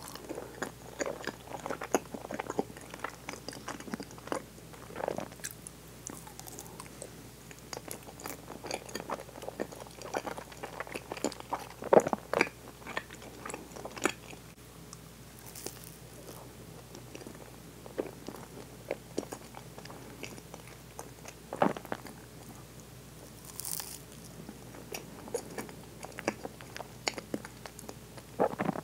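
Close-miked chewing of a very soft strawberry mochi sweet (yukiichigo, mochi wrapped around cream and strawberry): irregular mouth clicks and smacks with short pauses. The loudest smack comes about halfway through, and another comes a little past two-thirds of the way.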